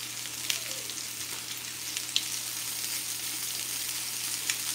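Chicken browning in a frying pan: a steady sizzle with a few sharp crackles of spattering oil.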